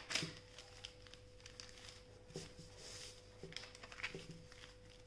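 Faint rustling and crinkling of a newspaper strip being folded back and forth into an accordion-pleated paper fan, with scattered soft taps and clicks.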